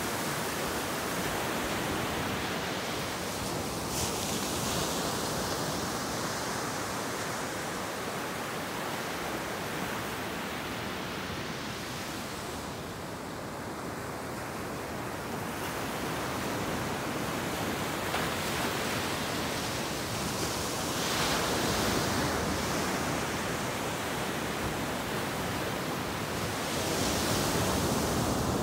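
Ocean surf breaking on a beach: a continuous wash of wave noise that swells louder as waves crash, a few seconds in, about three quarters of the way through, and again near the end.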